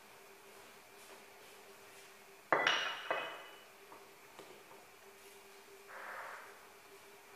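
Kitchenware clinking: one sharp clink that rings briefly, a softer knock about half a second later, and a few faint ticks after. A short soft hiss comes about six seconds in.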